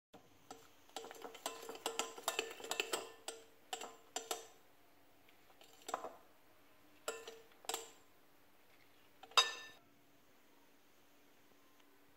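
Metal hand-mixer beater clinking and scraping against a glass bowl of thick whipped coffee: a quick run of clinks for the first four seconds or so, then a few separate knocks, the loudest about nine and a half seconds in.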